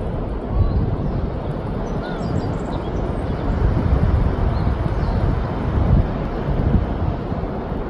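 Wind buffeting the microphone, a steady low rumble with an even hiss above it.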